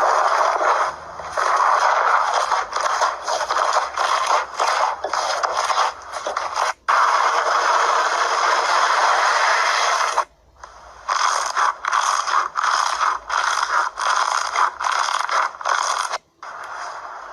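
Slime being worked by hand, a crackly scraping sound in many short repeated strokes, with one longer unbroken stretch in the middle. It cuts off abruptly three times, about seven, ten and sixteen seconds in.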